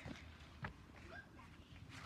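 Near silence: faint low rumble, with a soft click about two-thirds of a second in.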